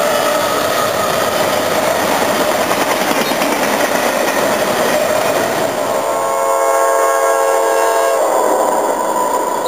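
CSX freight train of locomotives and autorack cars rolling past close by with a dense, steady rush of wheel and rail noise. About six seconds in, a train horn sounds a chord of several notes.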